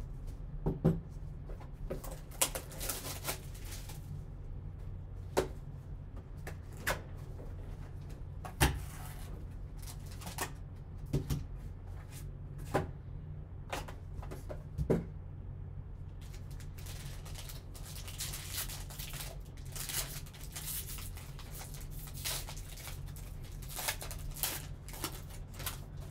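Gloved hands opening a Panini Obsidian football card box and its foil pack: scattered clicks and knocks of cardboard and plastic, then crinkling of the foil wrapper being torn open in the second half, over a steady low hum.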